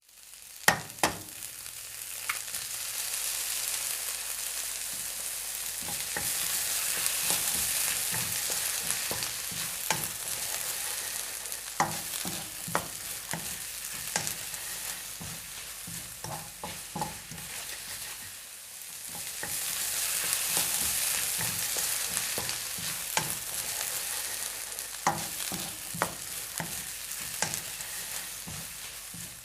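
An egg cracked, with two sharp clicks about a second in, then frying in a hot pan: steady sizzling with frequent small pops. The sizzle fades briefly a little past halfway and builds up again.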